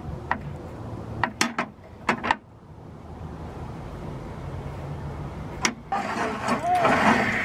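Sharp clicks and knocks of a table saw's miter gauge being handled and turned in its slot, a quick run of them in the first two and a half seconds and one more near six seconds, over a steady low hum. From about six seconds a louder noise with a short wavering tone builds up.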